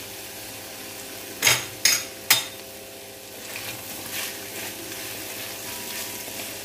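Chilli chicken sizzling in a metal kadai while a long-handled spoon stirs it, with three sharp clanks of the spoon against the pan about a second and a half in, followed by lighter scraping as the stirring goes on.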